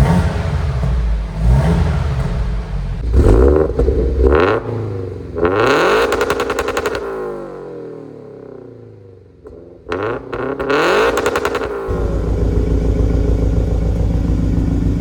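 Toyota GT86's flat-four boxer engine on unequal-length exhaust headers, revved in a series of throttle blips. One longer rev about six seconds in falls away slowly, another short blip follows, then it settles into a steady, pulsing idle for the last few seconds.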